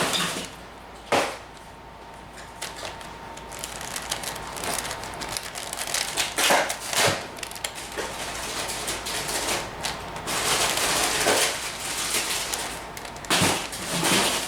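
Plastic clicks, snaps and rattling of a 5x5 Rubik's cube being turned by hand, with several sharp snaps a few seconds apart as layers are twisted.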